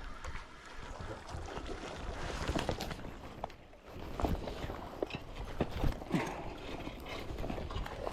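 Irregular knocks, taps and clatters, some in quick clusters, over a low wind rumble.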